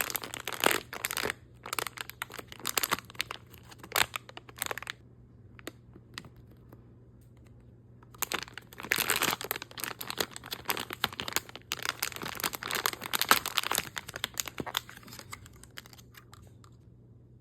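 Blind bag packaging being crinkled and torn open by hand, in two long stretches of crackling with a pause of a few seconds between them.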